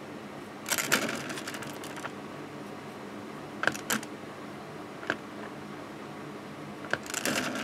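Handling noise from a painting board being turned and slid over a woven mat: a scratchy rustle about a second in and again near the end. Several light, sharp clicks fall in between.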